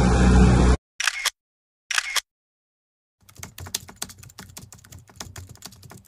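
A boat underway on open water, its motor and the wind making a loud steady noise that cuts off abruptly just under a second in. Two short bursts of noise follow, then a rapid run of keyboard-typing clicks, the sound effect of title text being typed out on screen.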